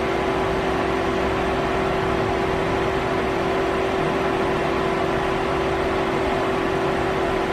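Citizen M32 Swiss-type CNC automatic lathe running: a steady machine hum with one constant tone over an even whir and hiss.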